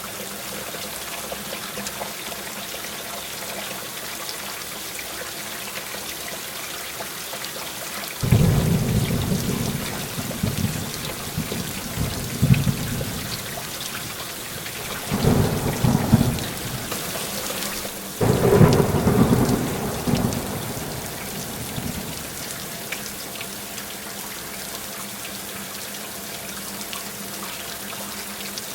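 Heavy rain falling in a steady hiss, with thunder rolling in three rumbles that each begin abruptly: one about a third of the way in, then two close together past the middle, fading back to rain alone near the end.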